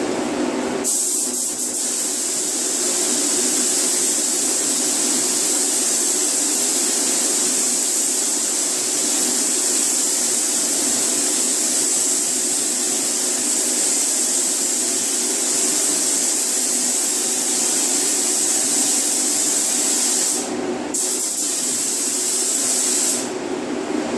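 Paint spray gun hissing steadily as base coat is sprayed onto a car hood. It starts about a second in, breaks off briefly near the end, resumes, then stops just before the end, over a steady low hum.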